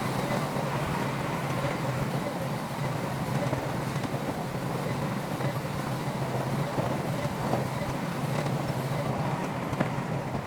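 Diesel engine of heavy earthmoving equipment running steadily, an even low-pitched noise with no pauses or impacts.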